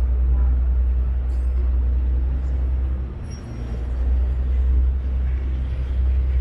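Low steady rumble of a vaporetto water bus under way, dipping briefly about three seconds in.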